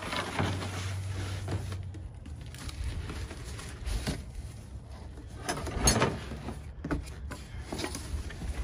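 Cardboard box being handled: scraped across a pickup's bed liner and its flaps pulled open, with rustling of the cardboard and irregular knocks and thumps, the loudest a cluster of sharp knocks about six seconds in.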